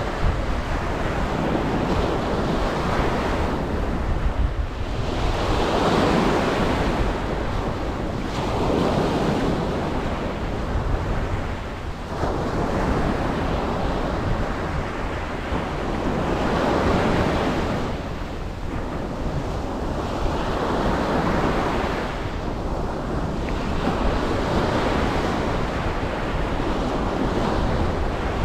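Ocean waves breaking and washing up a beach, the surf swelling and ebbing every three to four seconds over a steady low rumble.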